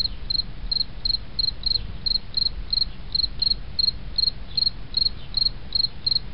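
Cricket chirping steadily, short high chirps about three a second, over a low rumble.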